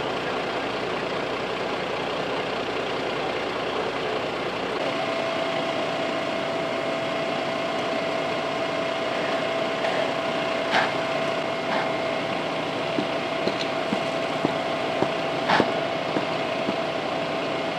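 Fire engine running at idle, a steady engine hum. A steady whine joins about five seconds in, and a few sharp knocks come in the second half.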